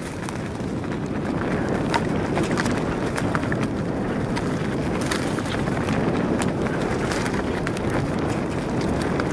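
Mountain bike rolling downhill on a dirt forest trail: a steady low rumble of knobby tyres on soil, with sharp rattling clicks from the chain and frame over bumps. It gets a little louder about a second in as the speed picks up.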